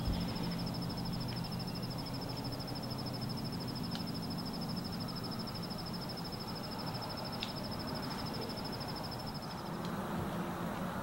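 Rural outdoor ambience: a steady low background rumble with a faint hum, and a thin, fast-pulsing high trill that stops about ten seconds in. Two faint ticks, about four and seven seconds in.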